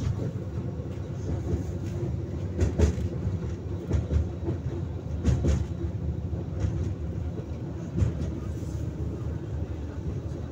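Tram running along its rails, heard from inside the car: a steady low rumble with a few sharp knocks.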